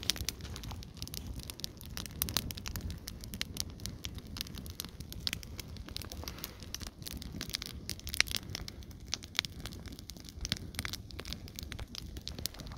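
A pile of sneakers burning in an open fire: flames crackling with frequent irregular sharp pops and snaps over a steady low rushing noise.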